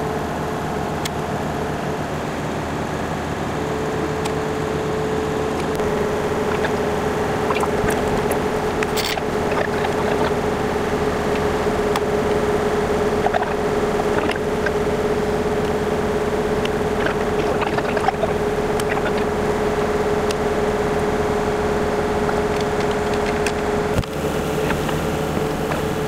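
A steady engine-like mechanical drone, with a held hum that comes in a few seconds in and drops out near the end, and scattered light clicks and clanks.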